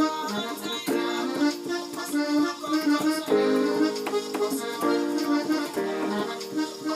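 Electronic keyboard playing gospel chords on an accordion tone, each chord held and then changing every second or two, with a higher line of notes moving above.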